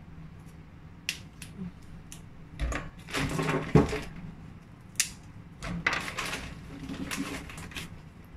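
Fingers snapping and tearing the tough stalks off shiitake mushrooms, with sharp clicks and a plastic bag crinkling, loudest a little past the middle.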